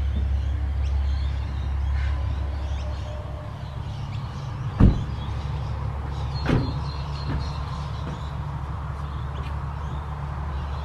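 Nissan sedan's door thudding twice, a loud knock about halfway through and a smaller one a second and a half later, over a steady low rumble.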